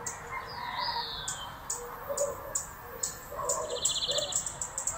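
Sparrow chirping: a string of short, high chirps, spaced out at first and coming quicker in the second half, with a brief trill about three and a half seconds in.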